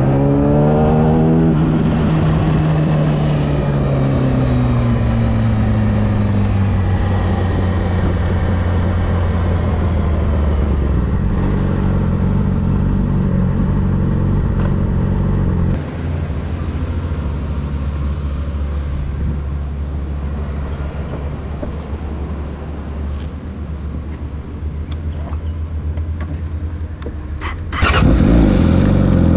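Onboard sound of a 2013 Yamaha R6's inline-four engine through an Akrapovic shorty slip-on exhaust. The revs climb briefly at the start, then the engine note falls steadily as the bike slows. About halfway through it drops to a quieter, steady low running, and the revs rise sharply near the end.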